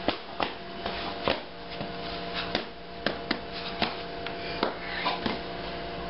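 A toddler's sneakered feet hopping and stepping on a ceramic tile floor: irregular light thumps and taps, about one or two a second, over a steady low hum.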